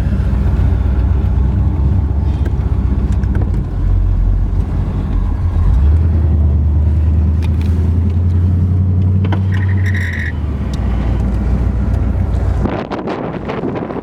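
A 1969 Corvette's 350 cu in small-block V8 (300 hp) running as the car drives. Its low drone grows stronger about six seconds in and eases off around ten seconds. A brief high chirp comes at about the ten-second mark.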